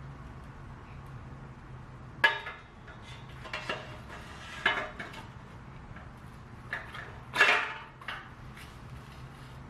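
Small metal bicycle headset parts clinking and clattering as they are handled and dropped together, in about five separate clatters, loudest about two seconds in and near seven and a half seconds, over a steady low hum.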